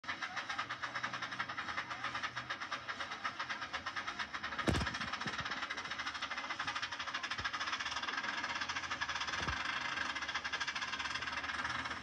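Steam pile driver's engine working with a steady rhythmic chuffing hiss, about three or four beats a second. A single heavy thump comes a little before the halfway point, and a few fainter knocks follow. The sound comes off a television through a phone.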